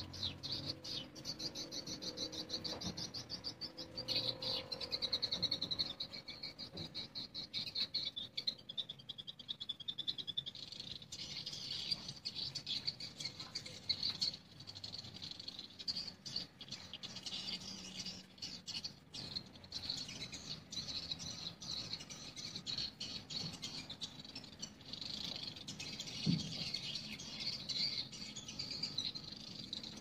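Edible-nest swiftlets twittering: a dense, unbroken stream of rapid high chirps. There is a brief low knock about three-quarters of the way through.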